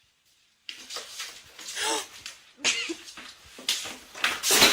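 A pet animal's sounds, including a short call that rises and falls, among uneven noisy bursts. It starts abruptly under a second in, after silence.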